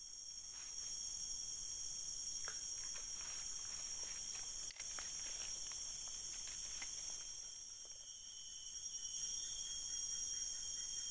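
A steady, high-pitched chorus of tropical forest insects buzzing without a break. A few faint ticks and rustles come through in the middle stretch.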